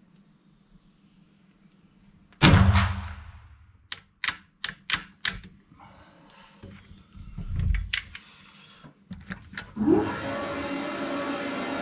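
A single shot from a muzzle-loading rifle about two and a half seconds in, with a ringing tail of nearly a second in a small room. It is followed by a quick series of sharp clicks, a dull thump, and near the end a steady rushing noise that starts suddenly.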